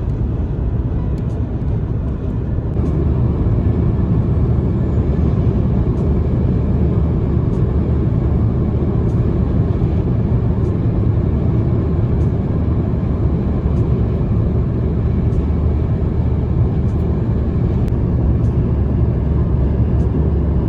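Road and engine noise inside a moving car: a steady low rumble that gets louder about three seconds in, with faint ticks roughly every second and a half.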